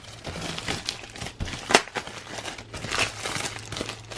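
Tissue paper crinkling and rustling as it is pulled out of a wicker basket by hand, in irregular rustles with sharp crackles.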